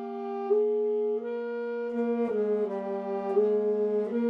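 School wind band of flutes, clarinets, saxophones, French horn and trumpet playing held notes together, the tune moving step by step over a steady low note.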